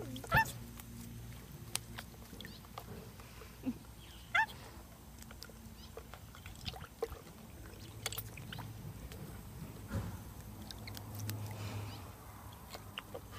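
A rainbow lorikeet bathing in a bird bath: water splashing and dripping as it dunks and flaps its wings, with a few short rising chirps, the loudest about half a second and four and a half seconds in.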